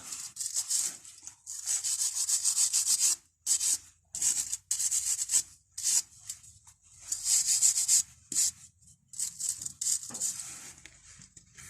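Hand wire brush scrubbing rust off the metal edge of a disc-brake pad, in quick runs of scratching strokes with short pauses. The rust on the pad's edge is the cause of the brake squeal.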